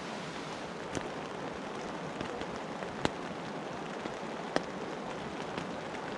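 Steady rain falling, with a few louder single drops ticking sharply now and then, the clearest about three seconds in.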